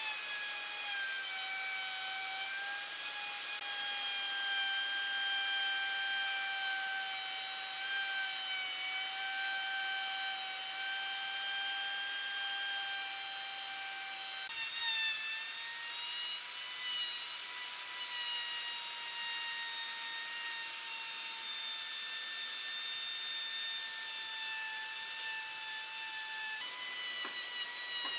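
DCA AMR02-12 electric plunge router running at speed and cutting into a solid-wood panel: a steady high motor whine over a hiss of chips. The pitch steps up slightly about halfway through and steps again near the end.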